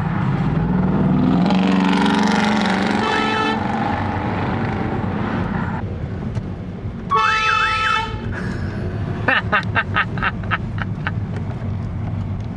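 Aftermarket multi-tone air horn fitted to a 2011 Mazda 3 sounds one blast of about a second, about seven seconds in, over steady road noise inside the moving car. Earlier, a loud swell of road noise with a low engine hum passes, and near its end comes a fainter horn note.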